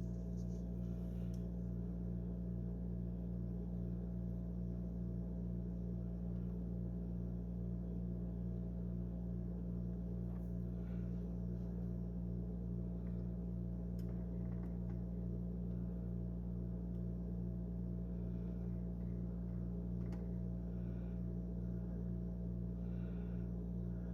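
A steady low hum made of several layered tones, unchanging throughout, with a few faint light ticks.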